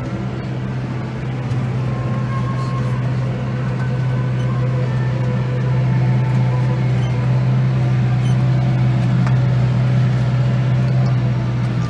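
New Holland T6.165 tractor's diesel engine running steadily under load while pulling a cultivator across the field, a deep drone heard inside the cab that grows a little louder about halfway through.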